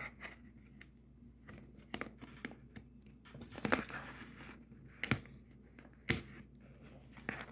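Packing tape being peeled off a cardboard box, with scattered rustling and a few sharp taps and clicks from handling the box; a longer tearing scrape comes about four seconds in.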